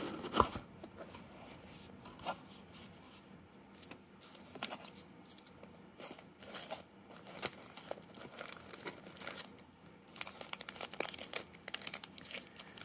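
Cardboard box lid opening with a knock about half a second in, then intermittent crinkling and rustling as foam packing peanuts and foil-wrapped trading card packs are handled and pulled out, with a denser run of crinkling near the end.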